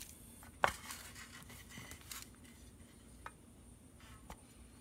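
Kitchen prep on a wooden cutting board: a single sharp knock on the board about half a second in, then light rustling of dry garlic skins and a couple of faint clicks.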